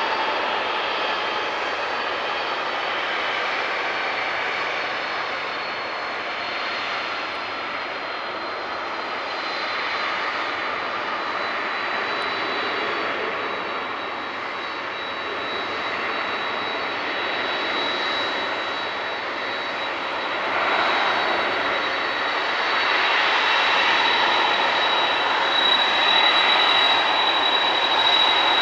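Boeing 747-400 freighter's four jet engines running at low thrust while it taxis: a steady rushing jet noise with a thin high whine over it, growing louder about two-thirds of the way through as the jet turns toward the runway.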